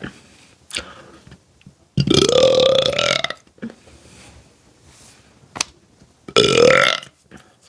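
A woman burping loudly twice: a long burp of about a second and a half, then a shorter one a few seconds later, each rising in pitch as it starts.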